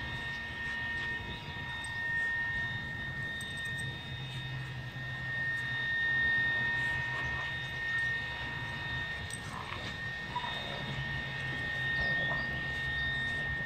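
A steady machine drone: a low hum under a constant high whine.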